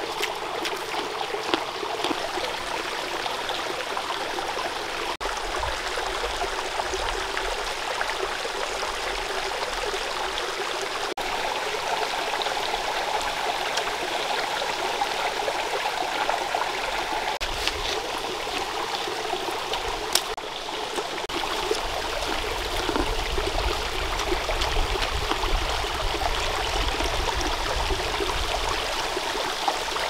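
Shallow rocky stream running over stones: a steady rush of flowing water.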